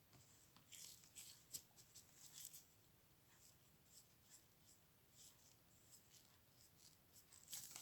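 Faint, scattered rubbing and scratching strokes: an inner lens element of a Fujifilm FinePix HS20EXR being wiped clean of dust. Most strokes fall in the first few seconds, with a slightly louder one near the end, against near silence.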